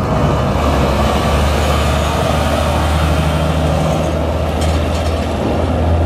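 Diesel engines of Peterbilt semi trucks hauling double side-dump trailers, running with a steady low drone as the rigs pass close by.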